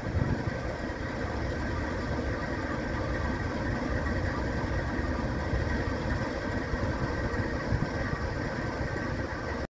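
GE AC44C6M diesel-electric locomotive's V16 prime mover idling while the train stands waiting for a signal: a steady low rumble with faint steady higher tones over it. The sound cuts off suddenly near the end.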